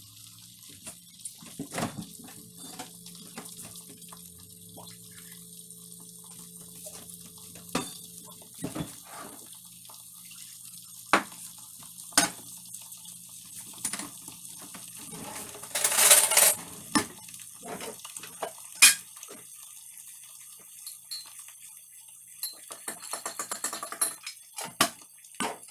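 Kitchen clatter: scattered clinks and knocks of dishes, pans and cutlery, over a faint low hum, with one louder rush of noise lasting about a second just past the middle.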